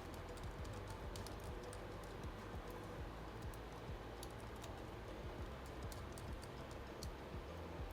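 Faint, irregular light clicks and taps of small parts and a tool being handled on an open laptop, over a steady low hum.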